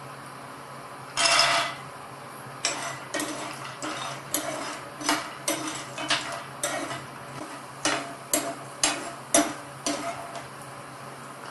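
Cashew nuts tipped into a non-stick frying pan, a short rattling rush about a second in, then a metal spoon stirring them, scraping and clinking against the pan in quick strokes about two a second. A faint steady low hum runs underneath.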